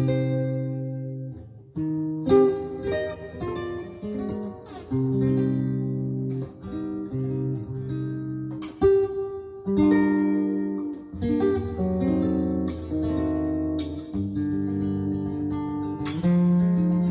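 Solo guitar played with the fingers: a slow run of plucked chords with bass notes under them, each chord left to ring before the next, with a few sharper, louder attacks along the way.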